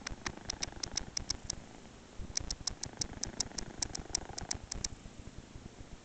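Sleeping kitten snoring: a fast run of sharp clicks, about seven a second, that stops for under a second and then starts again for about two and a half seconds.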